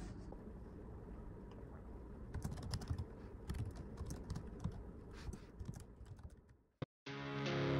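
Typing on a computer keyboard: a run of irregular key clicks over faint room noise. About seven seconds in, the typing stops and a strummed guitar tune comes in, louder than the typing.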